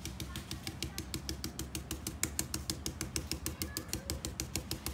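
Round stencil brush dabbing white chalk paint through a plastic sunflower stencil onto a coaster: rapid, even taps, about nine a second.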